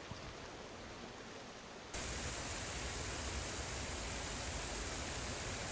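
Steady rushing of a shallow stream flowing over rocks and a riffle, which jumps suddenly louder and brighter about two seconds in and then holds steady.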